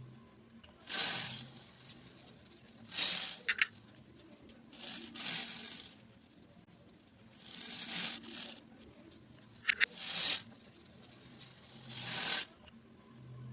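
Beads being poured in about six short rushes, each a dense rattle lasting a second or less, with a few brief ringing pings among them.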